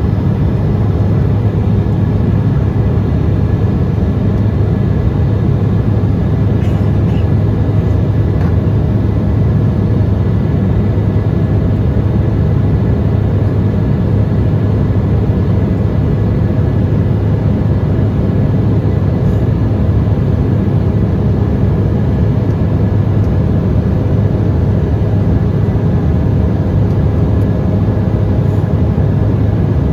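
Steady cabin noise inside an Embraer ERJ-170 airliner under power, its GE CF34 turbofans and the airflow making an even, deep hum that does not change.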